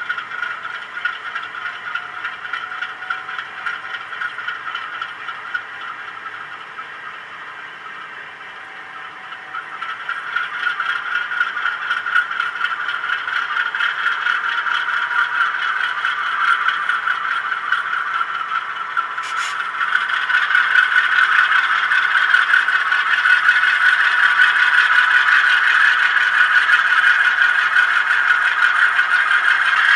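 HO scale model of a GE U25C diesel locomotive running with its TCS WOWsound decoder, the recorded diesel engine sound coming thin from the model's small speaker over the rattle of the wheels on the track. It grows louder about a third of the way in and again past halfway as the train draws closer.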